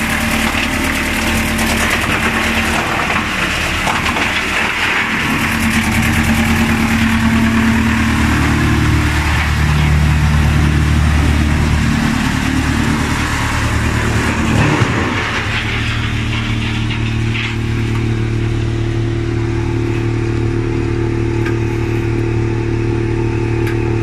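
A 160 kW YMPJ 218 drum wood chipper running with a steady hum, with a dense rushing, rattling noise over it as a log is cut into chips. About fifteen seconds in, after a brief knock, the chipping noise thins out and the machine's steady hum carries on.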